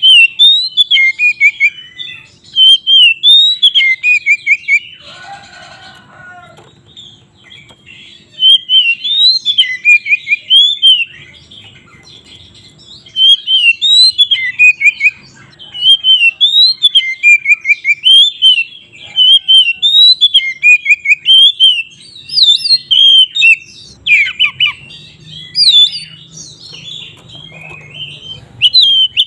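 Oriental magpie-robin (kacer) singing loudly in bursts of rapid, varied whistled notes, broken by short pauses. There is a brief harsher, lower-pitched sound about five seconds in.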